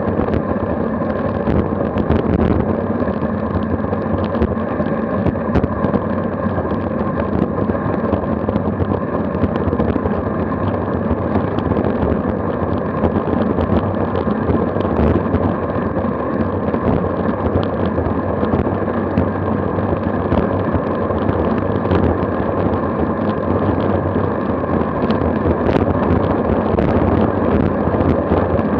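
Steady wind noise buffeting a Garmin VIRB action camera's microphone, with tyre and road rumble, on a road bike descending fast at about 26 to 35 mph. It grows a little louder near the end as the speed rises.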